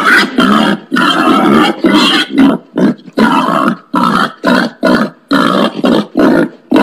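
Wild pig grunting in a rapid string of short, rough grunts, about a dozen at roughly two a second.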